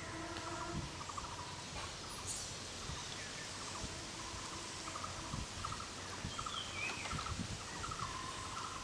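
Outdoor rural background with faint, rapidly repeated insect-like chirps and a few short bird chirps; a low steady hum fades out about a second in.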